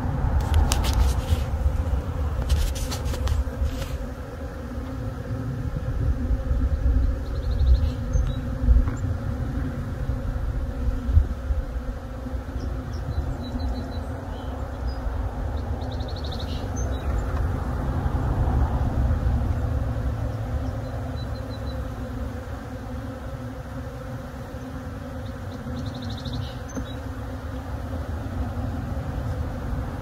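Honeybees buzzing in a steady hum around an open hive whose frames are being handled, over a low rumble. A few sharp clicks come in the first few seconds.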